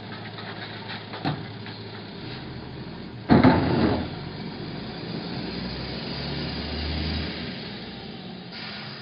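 A loud clattering crash about three seconds in as a recycling can is thrown into a garbage truck's hopper, followed by the truck's engine running and growing louder as it pulls away.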